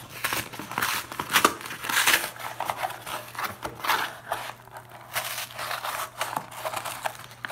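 Corrugated cardboard coin-roll box being torn open by hand: the tear strip and box wall ripped and crinkled in a run of irregular tearing sounds, loudest about one and a half to two seconds in.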